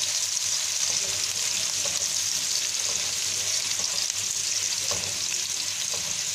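Chopped onion sizzling in hot olive oil in a nonstick pan, a steady high hiss, while it is stirred with a few faint scraping ticks.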